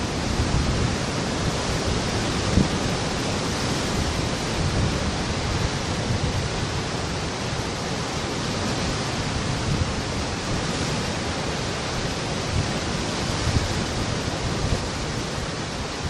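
Sea waves breaking and washing among rocks along a rocky shore: a steady rush of churning surf with a few heavier surges.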